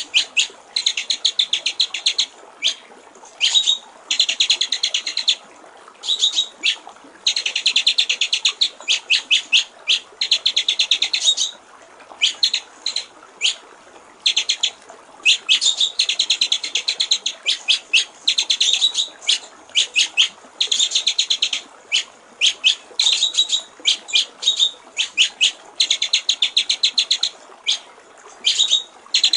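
White-rumped shama (murai batu) singing in bursts of rapid, repeated sharp notes and trills, each burst a second or two long with short gaps between, over a steady trickle of running water.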